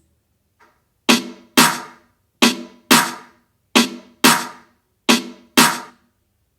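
Music: a sparse, drum-machine-style break of sharp percussive hits with a short pitched ring. They come in pairs about half a second apart, one pair roughly every 1.3 seconds, with silence between.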